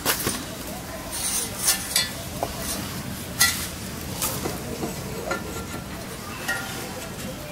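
Metal clinks, knocks and scrapes of a steel cage wheel being handled and fitted on a power weeder's axle: a handful of separate sharp strikes, a few of them ringing briefly.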